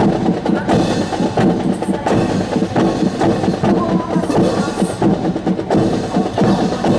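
Rifle drill team working 3 kg drill rifles in unison: a rhythmic run of sharp clacks and slaps of rifles being handled and struck, with drum beats.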